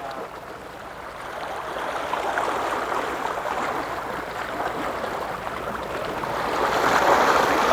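Steady rushing noise, growing louder toward the end.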